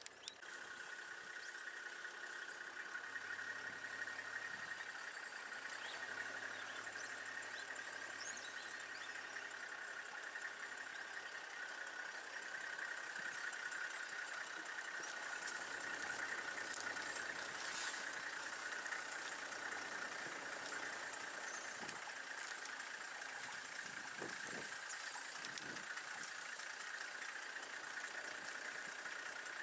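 Vehicle engine running steadily as the vehicle drives slowly along a dirt road, with a constant high hum over it.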